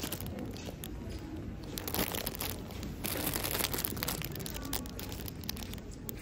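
Clear plastic bags around plush toys crinkling in irregular rustles as a hand squeezes and handles them.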